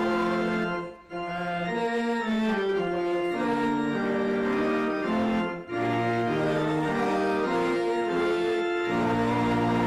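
Organ playing a slow piece in held chords that change step by step, with two brief breaks between phrases, about a second in and a little past the middle.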